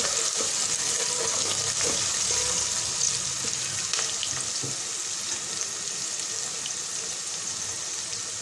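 Sliced onions, green chillies and whole spices sizzling steadily in hot oil in a steel pan, with fine crackling throughout.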